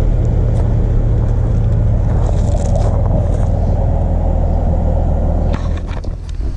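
Mercedes-AMG C63 with its secondary cats and resonators deleted, its engine running with a steady low rumble while driving. The rumble eases off near the end, followed by a few sharp clicks.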